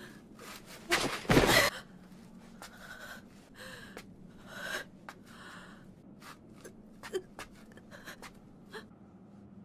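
Gasps and hard breathing from an anime character, with one short, loud burst of noise about a second in and fainter breaths scattered after it.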